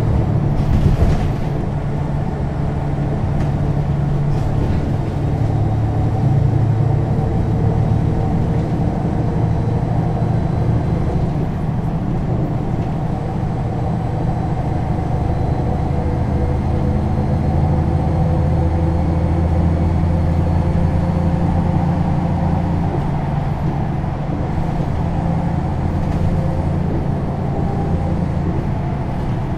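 MAN NL 283 city bus's six-cylinder diesel engine running steadily under load while cruising at motorway speed, with a constant engine drone and road noise that shifts only slightly in pitch.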